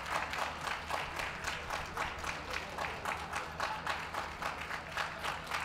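Crowd of spectators applauding steadily, many hands clapping at once.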